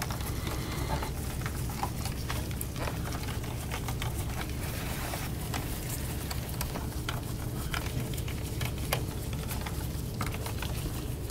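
Small scattered clicks and taps of screws being handled and driven back into a laptop's plastic bottom cover with a Phillips screwdriver, over a steady low hum.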